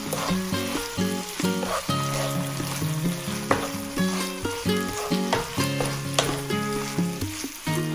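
Tuna, sliced mushrooms and onion sizzling in a frying pan while a wooden spatula stirs them, under background music of held notes that step in pitch.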